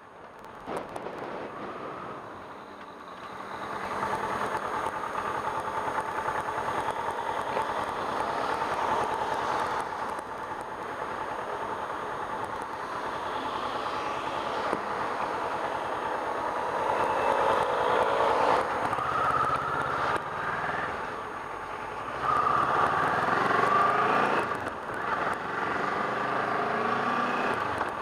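Kawasaki Ninja 650's parallel-twin engine running on the move, its pitch rising and falling several times in the second half.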